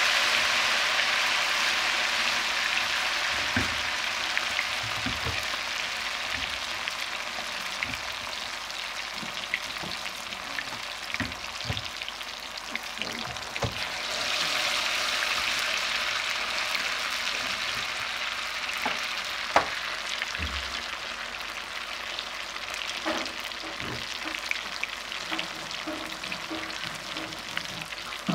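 Masala-coated fish pieces shallow-frying in hot oil: a dense sizzle that is loudest at the start and slowly dies down, swells again about halfway through as another piece is laid into the oil, and is dotted with sharp pops and crackles.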